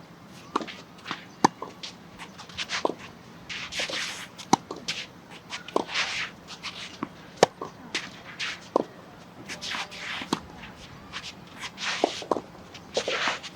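Tennis rally: sharp pops of the ball off the racket and the court, mixed with players' shoes scuffing and shuffling on the court.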